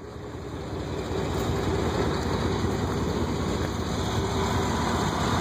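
Chevy Silverado pickup's engine idling steadily. The sound grows louder over the first second or so, then holds even.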